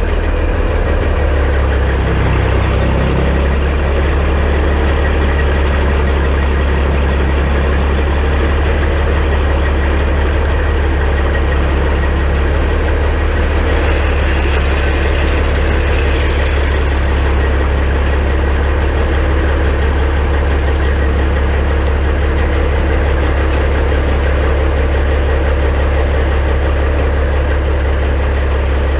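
2006 Peterbilt 379's diesel engine idling steadily with a deep, constant drone. A faint hiss comes in briefly about halfway through.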